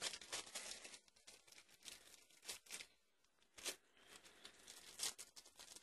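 Faint rustling, crinkling and tearing of parcel packaging being opened by hand, in short scattered bursts of rustle.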